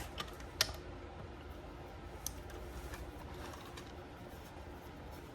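Quiet room tone with a low steady hum, broken by a few light clicks from handling the mortise lock body and its cover.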